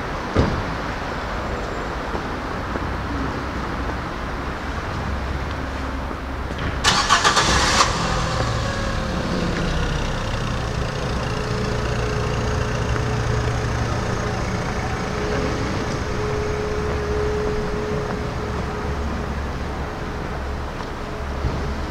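A nearby car engine is started about seven seconds in: a second of starter cranking, then the engine catches and idles steadily. A steady hum of street noise lies beneath it.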